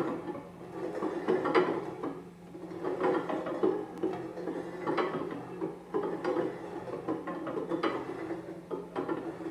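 Several glass and steel pot lids spinning and wobbling on their rims on a wooden tabletop, their metal edges rattling and whirring against the wood in overlapping waves that swell and fade.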